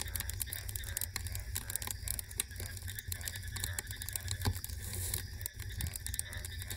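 Wood fire burning down to embers, crackling with a dense, irregular stream of small pops and snaps over a steady low rumble.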